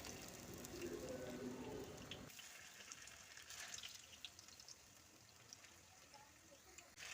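Faint crackle of batter-coated plantains frying in hot oil, with scattered light pops, dropping to near silence after about two seconds.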